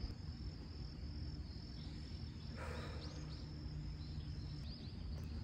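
Outdoor ambience: insects trilling steadily at a high pitch, with short faint chirps over a low rumble of wind. A brief rustle about two and a half seconds in.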